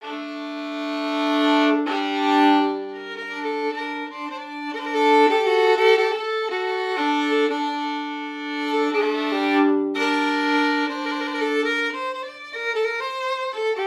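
Music: a violin playing slow, sustained notes.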